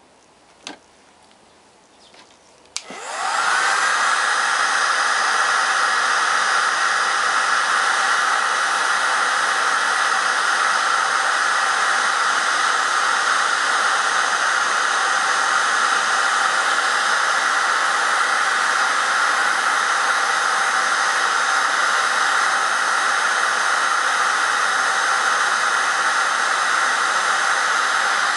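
Electric heat gun starting with a click about three seconds in, then blowing hot air at a steady level with a rushing noise and a high hum, heating a rollerski tip's ferrule so it expands to fit the pole.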